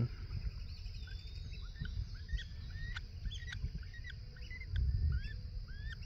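Adult red-cockaded woodpeckers calling: a run of short, rising chirps, two or three a second, over a steady high insect drone.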